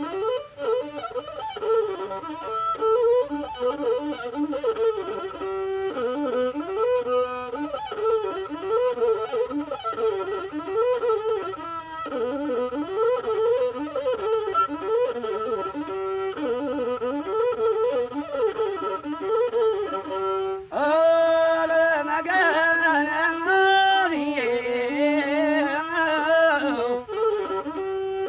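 Masinko, the Ethiopian one-string bowed fiddle, playing a wavering, ornamented azmari melody; about two-thirds of the way in it jumps to a higher, louder register.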